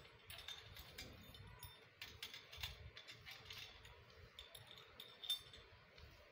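Faint metallic clicks and clinks of the metal mounting bracket of a satellite dish being fitted and tightened by hand, with a slightly louder knock about five seconds in.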